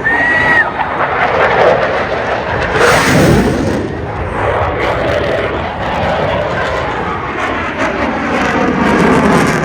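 Fighter jet flying past with a loud rushing jet roar, swelling about three seconds in and again near the end.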